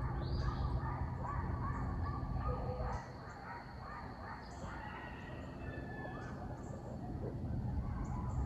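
Coyotes yipping and howling in the distance, mixed with birds chirping, over a low rumble that drops away about three seconds in.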